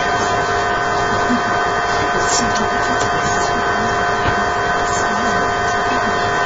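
Steady background noise with a constant hum and a faint murmur of voices underneath.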